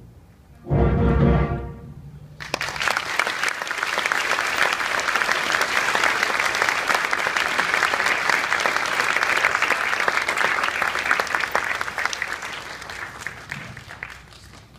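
A school concert band's brass and woodwinds hold a loud final chord for about a second and cut off. The audience then applauds for about eleven seconds, tapering off near the end.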